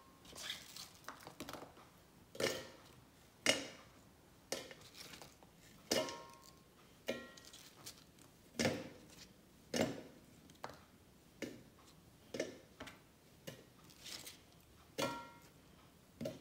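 Apple cubes dropped one by one into a stainless-steel blender jar, about one a second, each landing with a sharp knock and some leaving a brief metallic ring.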